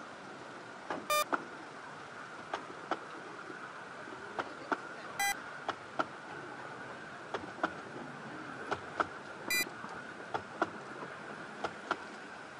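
Narrow-gauge railway carriages rolling slowly past, their wheels clicking and knocking irregularly over the rail joints, about one or two knocks a second. Three brief high-pitched ringing chirps come among the knocks.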